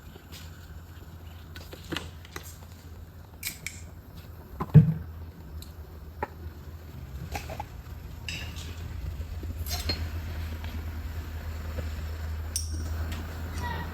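Kitchen clatter: dishes and utensils knocking and clinking now and then, with one louder thump about five seconds in, over a steady low hum.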